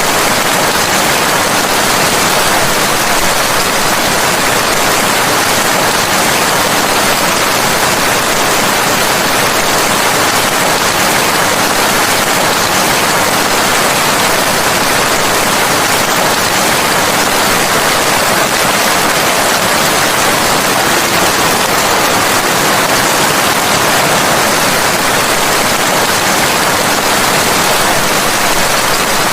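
Steady, dense rain with no separate drops, thunder or changes.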